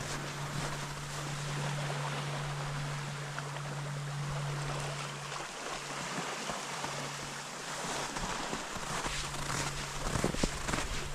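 Steady rushing noise with a steady low hum underneath; about ten seconds in, footsteps on river ice begin.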